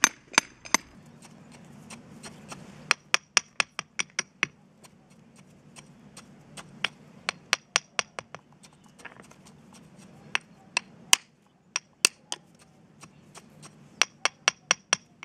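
Steel paving hammer tapping small cobblestones into a sand bed: quick runs of sharp clinks of metal on stone, several a second, with short pauses between the runs.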